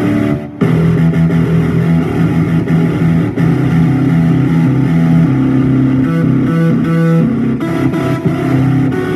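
Guitar music with held, changing notes and a brief drop about half a second in.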